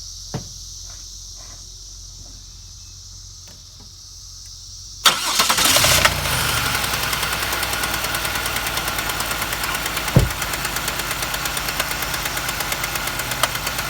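A GM 3800 Series II V6 cranks and starts about five seconds in, then idles with its valve cover off, with a fast, even ticking and a metallic rapping from the valvetrain. The owner puts the rapping down to a wiped lifter or wiped cam lobe under the #1 exhaust rocker, which no longer moves.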